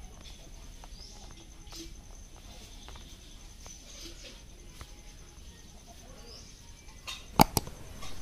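Quiet rural outdoor background with faint, short bird chirps over a steady high-pitched insect drone, then two sharp clicks in quick succession near the end.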